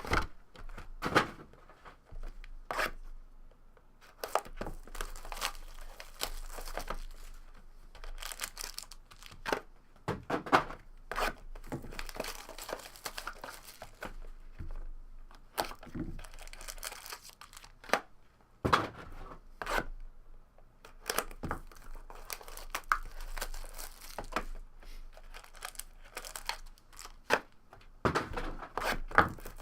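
Wrapping and packaging being torn open and crinkled as a sealed box of trading cards is opened, in irregular bursts of sharp rips.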